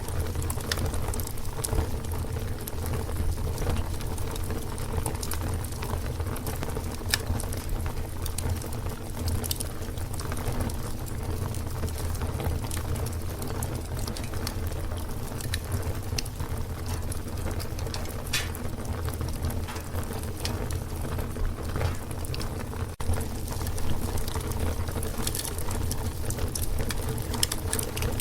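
Fire burning, a steady low rumble of flames with scattered sharp crackles and pops.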